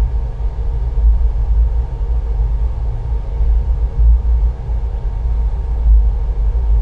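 Steady low rumble of a train in motion, continuous throughout with no breaks.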